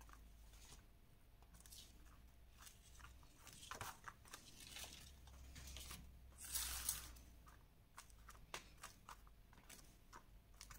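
Faint paper rustling and soft taps as hands press and smooth a glued cardboard box down onto a sheet of kraft paper, with a louder rustle about seven seconds in.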